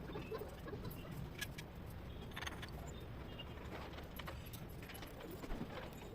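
Scattered light clicks and clinks, a few seconds apart, over a low steady hum.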